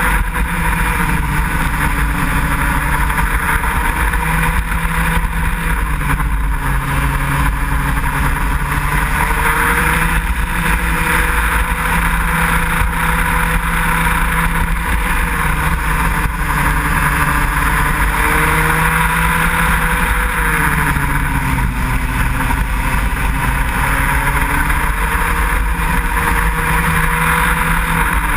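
Racing kart engine at speed, heard on board, its pitch rising and falling repeatedly as it accelerates and slows through the corners.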